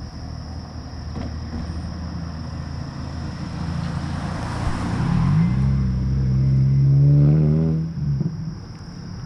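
A car passing close by: its tyre noise swells about four seconds in, then the engine note climbs as it accelerates and drops away about a second before the end.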